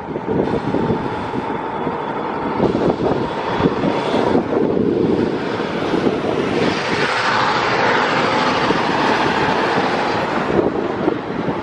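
Road traffic passing on the street alongside, with a tanker truck driving past close by in the second half, its tyre and engine noise swelling and then fading.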